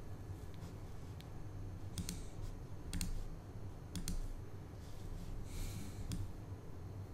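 Computer mouse clicking: a handful of sharp single clicks, several in quick pairs, over a low steady hum.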